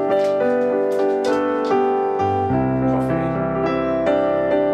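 Background piano music: held chords changing in steps, with lower bass notes coming in about halfway.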